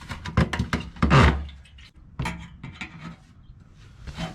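Handling noise from a scooter fuel tank being lifted and tilted up out of its frame: a string of knocks, clicks and scraping. The heaviest knock and scrape comes about a second in.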